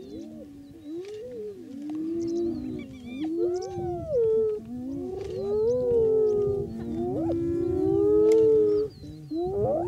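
Several wild animals howling at once, in long wavering wails that overlap and glide up and down in pitch, loudest in the second half.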